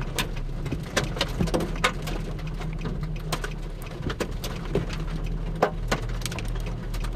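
Big raindrops striking the storm-chase vehicle's roof and glass: irregular sharp taps, a few a second, over a low steady hum from the vehicle.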